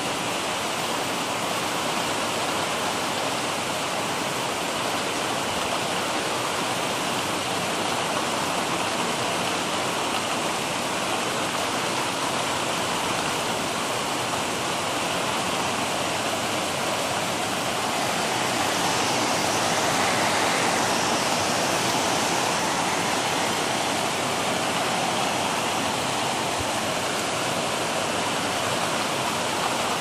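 Heavy rain falling steadily in a dense, even hiss, swelling a little about two-thirds of the way through.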